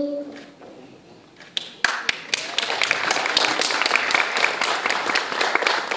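Audience clapping, starting about a second and a half in, with sharp individual claps standing out at roughly five a second.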